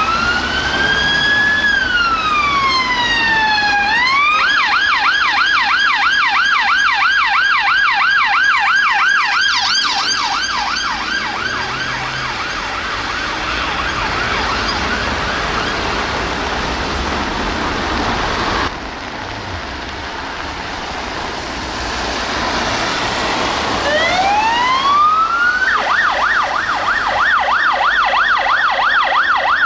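UK police car sirens. One siren wails, switches to a fast yelp about four seconds in and fades as the car moves off. After an abrupt cut, a BMW 330d police car's siren winds up about two-thirds of the way through and goes into a loud yelp.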